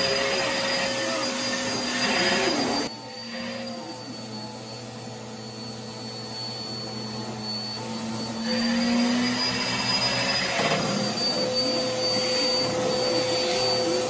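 Upright bagless vacuum cleaner running with its hose attachment in use, a steady motor noise with a high whine. It drops to a quieter, lower sound about three seconds in and comes back up to full strength after about five seconds.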